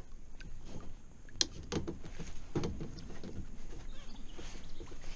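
A few irregular sharp knocks over low water noise as a bowfishing line is hauled in by hand over the side of a plastic kayak, bringing in a shot fish.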